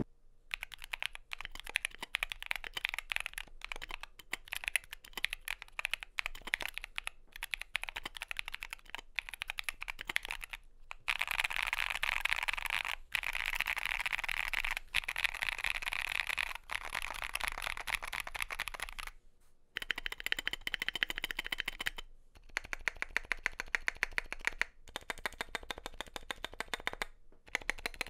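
Typing on a wireless 65% mechanical keyboard: Epomaker GK68XS aluminium case with Akko CS Blue tactile switches, in stock form, and Akko ASA keycaps, with foam laid in the bottom of the case. The keystrokes clack steadily, with a run of fast typing in the middle, a short pause, then more evenly spaced presses. The hollow hum on each press is gone, but the sound is still fairly dry, and the stock stabilizers, not yet lubricated, spoil it.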